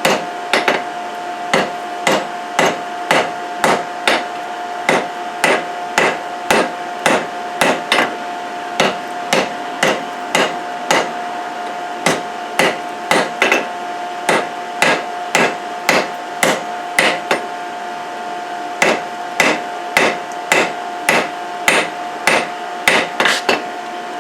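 Hammer blows on hot steel on an anvil, struck by hand at about two a second in runs with short pauses, as a damascus billet is forged. A steady hum runs underneath.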